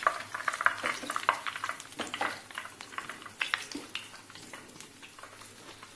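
Hot deep-frying oil crackling and sizzling as a wire skimmer lifts the fried bread rolls out of the pan. The crackles are thick at first, then thin out and fade over the last few seconds.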